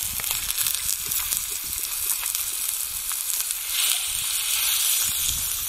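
Meat sizzling and crackling in plenty of hot oil in a pan, with a steady hiss of small spatters that swells briefly about four seconds in.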